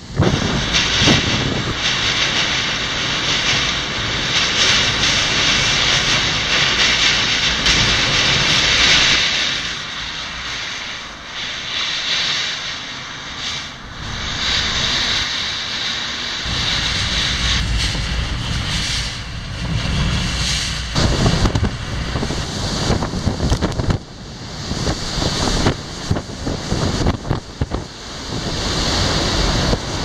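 Typhoon-force wind with driving rain: a loud, steady rushing roar. In the second half, gusts hit the microphone in rough surges and sharp blasts.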